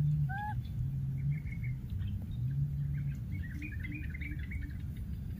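Baby macaque gives one short rising-and-falling coo call soon after the start, the last of a string of such calls as it calls for its lost playmate. After it comes a scatter of faint, quick, high bird-like chirps, over a low hum that comes and goes.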